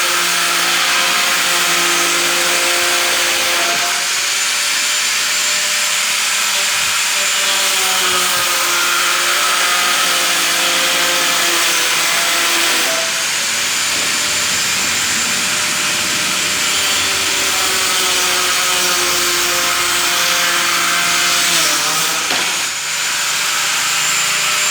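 A power tool's motor running continuously, its pitch drifting slightly as the load changes, with a brief dip near the end.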